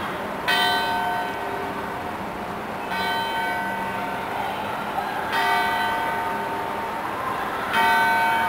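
A church bell tolling slowly, struck four times about two and a half seconds apart, each stroke ringing on and fading, over a steady background hum.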